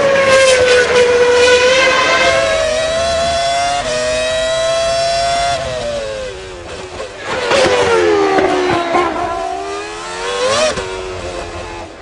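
BAR-Honda Formula One car's V10 engine running at high revs: the note holds high, jumps up a step about four seconds in, sinks over a few seconds, then climbs again and breaks off sharply near the end.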